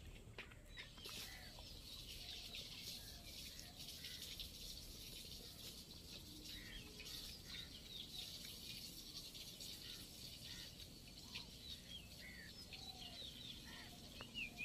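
Faint birdsong: many short, high chirps from small birds, overlapping one another over a quiet outdoor background.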